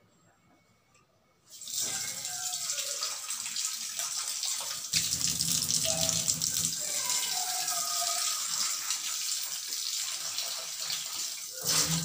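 Kitchen tap running, water splashing into a stainless steel sink and over a plastic jug being rinsed under it; the flow starts about a second and a half in and runs steadily, heavier for a couple of seconds around the middle.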